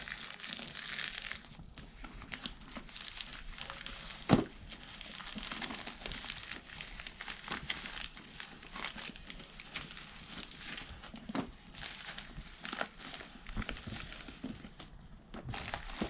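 Packaging being handled and unwrapped, with steady crinkling and rustling broken by small clicks, and one sharp loud knock about four seconds in.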